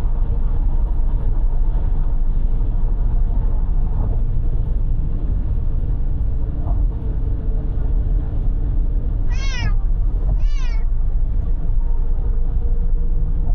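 Steady low road and engine rumble inside a moving car's cabin, with a cat meowing twice in quick succession about nine and a half and ten and a half seconds in.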